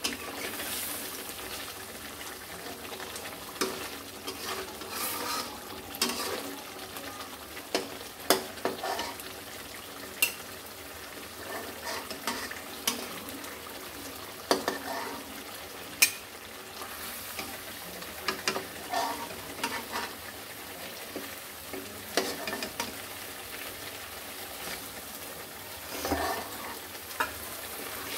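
Hilsa fish pieces and spice paste sizzling in oil in a metal wok. A metal spatula scrapes the pan and knocks against it in frequent sharp clicks as the briefly sautéed fish is lifted out.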